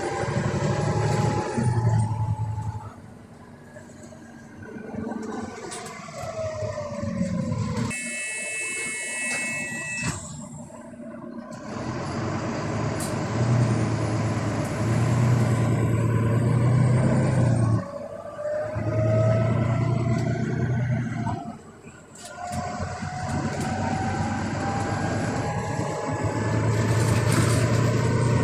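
Cabin sound of a Volvo B9TL double-decker bus on the move: diesel engine and drivetrain pulling, with a whine that rises in pitch as the bus gathers speed, easing off and picking up again several times through gear changes and slowing. A brief high hiss about eight seconds in.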